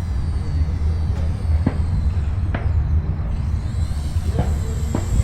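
Flyzone Ultra Micro SE5a RC plane's tiny electric motor and propeller giving a faint, high, buzzing whine that bends in pitch. The whine fades about three seconds in and then returns as the plane passes. It sits over a steady low rumble on the microphone, with a few light clicks.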